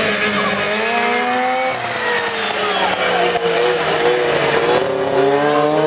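Several racing modified lawn mower engines running hard together, their pitch rising and falling as the mowers throttle on and off around the track.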